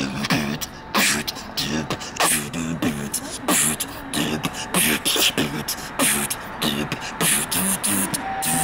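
Human beatboxing into a cupped hand: sharp kick and snare hits about once a second, with pitched vocal tones that bend up and down between them.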